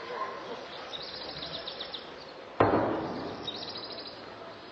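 A single sharp, loud bang about two and a half seconds in, dying away over about a second. Small birds trill high and rapidly twice in the background.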